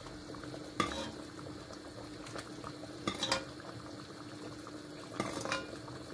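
A utensil scooping simmering tomato stew out of a cast-iron pot into a ceramic bowl, with a few sharp clinks against the bowl and pot about a second in, around three seconds and just past five seconds, over the steady bubbling of the stew.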